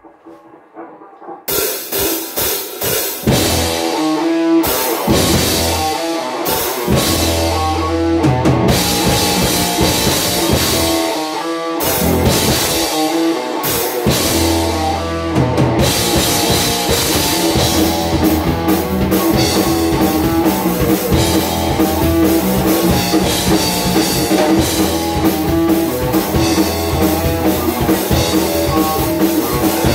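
A speed metal band playing live: drum kit, electric guitar and electric bass. The music comes in about a second and a half in with hits broken by short stops for the first fifteen seconds or so, then the full band plays on without breaks.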